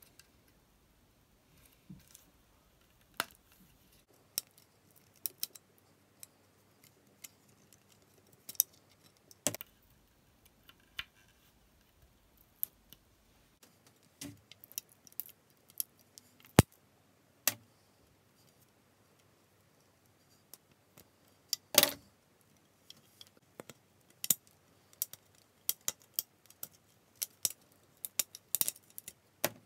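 Irregular plastic clicks, taps and small snaps as the old grommet strips are handled and pried off a Head Elektra Pro tennis racket frame, with a louder cluster of clicks a little past two-thirds of the way through.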